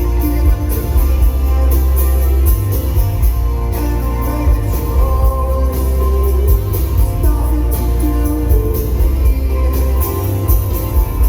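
Live rock band playing a slow song, with heavy bass, guitar and drums keeping a steady beat.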